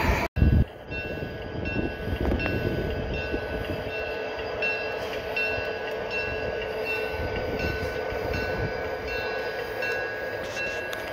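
G scale model train running on outdoor track: a steady hum with a regular ticking of about two a second. There is a brief drop-out and thump about half a second in.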